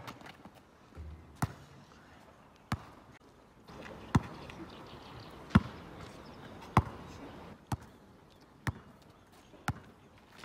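Basketball bouncing on an asphalt court: about eight sharp single bounces, roughly a second or so apart.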